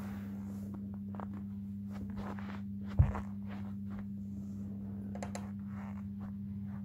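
A foot in a black leather Nike Air Force 1 Low trainer shifting on a carpeted floor, with faint scuffs and rustles and one heavy thud about three seconds in, over a steady low hum.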